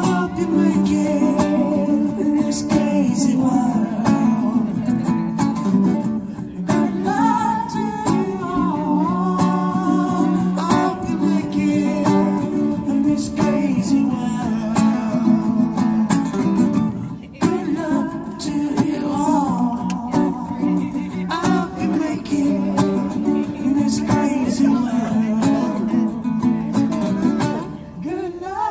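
Live acoustic guitar strummed steadily under a sung melody, with a short break about two-thirds of the way through.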